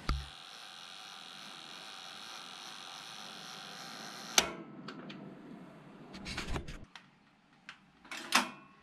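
Two-slice toaster's clockwork timer dial humming steadily as it runs down, ending about four and a half seconds in with a sharp ping as the timer reaches zero. Then the carriage lever rattles and clicks as it is worked to lift the toast.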